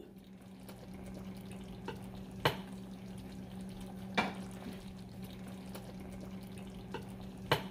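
Coconut-milk curry sauce simmering in a pan while a plastic spatula stirs it, knocking sharply against the pan three times. A steady low hum runs underneath.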